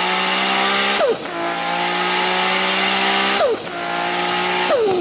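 High-revving multi-cylinder race car engine at full throttle, accelerating through the gears: the pitch climbs steadily and drops sharply at each upshift, about a second in, again past the middle and near the end.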